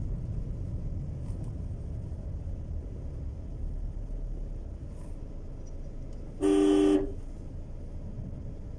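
A vehicle horn sounds once, a loud half-second two-note blast about six and a half seconds in, over a low steady background rumble.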